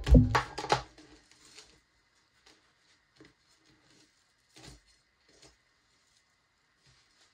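A hammer pounds turkey breast flat inside a plastic zip-top bag on a table, about three heavy thuds a second, stopping about a second in. After that there are only faint taps and rustles as the meat is pressed into panko crumbs, with one soft knock near the middle.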